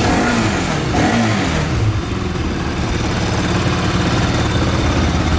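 Bajaj Pulsar RS200's single-cylinder engine running on its first start after a new fuel pump was fitted. It is blipped up and down in pitch during the first two seconds, then settles into a steady idle.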